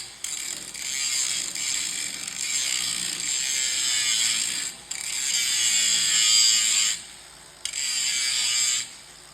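A power grinder's abrasive wheel grinding metal, a harsh, high, gritty noise in three long passes with brief lulls between them.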